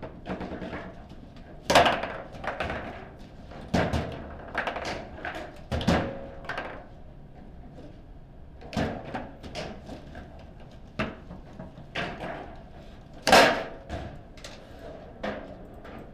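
Table-football game in play: the ball struck by the rods' players and knocking against the table, a string of sharp knocks at uneven intervals, loudest about two seconds in and again about thirteen seconds in.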